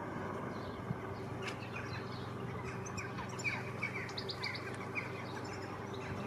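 Small birds chirping in short, quick phrases over the low, steady hum of an AgustaWestland AW109SP helicopter in flight.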